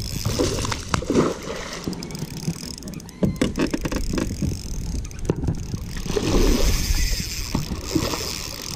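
A hooked bass being fought from a boat: splashing at the water's surface, with scattered clicks and knocks from the spinning rod and reel being handled, over a steady low rumble.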